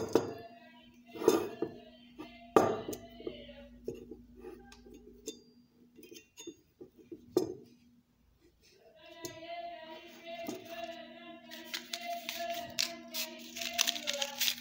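Metal clinks and knocks as a refillable gas torch and its gas cartridge are handled while being readied to light. From about two-thirds of the way in comes a high hiss with rapid clicks, under a faint tune in the background.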